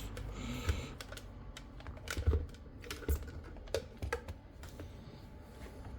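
Irregular light clicks and taps of small objects being handled, with a couple of louder knocks a little over two seconds in.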